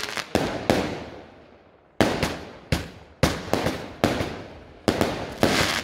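Multi-shot firework cake firing aerial shells in sequence: a string of sharp bangs, each trailing off in an echo, with a lull of about a second after the first few.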